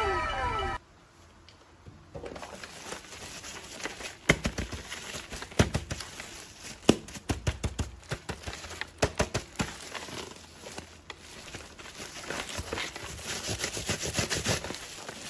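A loud run of repeated falling tones cuts off abruptly under a second in. Then plastic packaging crinkles with many scattered sharp clicks and taps as an action figure is unboxed by hand.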